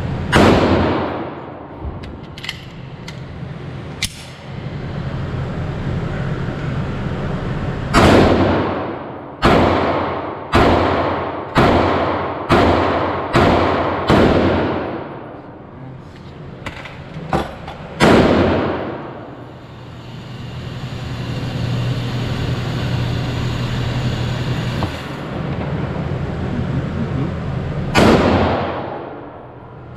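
Handgun shots from a .40 cal Smith & Wesson M&P Shield pistol in an indoor range, each with a long ringing tail. There is a single shot near the start, a quick string of about seven shots roughly one a second from about eight seconds in, and single shots again near 18 and 28 seconds. A steady low ventilation hum runs between the shots.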